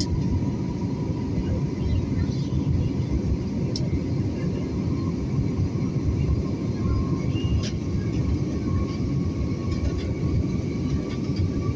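Jet airliner cabin noise during climb-out: the engines and the rushing airflow make a steady, deep roar, with a faint steady high whine on top.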